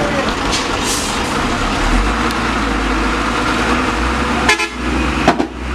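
Diesel engines of heavily loaded Mitsubishi Fuso dump trucks running, stuck in mud, with a low rumble that strengthens about two seconds in. A short horn toot sounds about four and a half seconds in.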